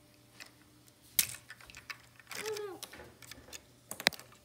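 LEGO plastic pieces and a minifigure being handled and pressed into a cockpit seat: scattered sharp clicks and taps, the loudest about a second in and a quick cluster near the end. A short hummed voice sound comes midway.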